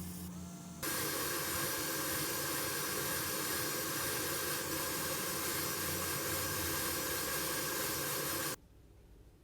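A loud, steady hiss that starts abruptly about a second in and cuts off sharply near the end.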